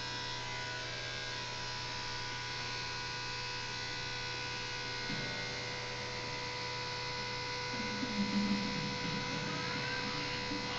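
Electric pet grooming clippers buzzing steadily while trimming a schnauzer's coat.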